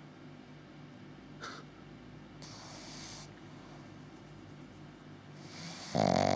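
Pug-shih tzu cross puppy snoring in its sleep: a breathy hiss about two and a half seconds in, then a loud snore near the end.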